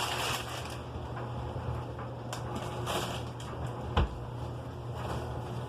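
Handling noises: a snack bag crinkling briefly at the start, then scattered clicks and one sharp thump about four seconds in, over a steady low hum.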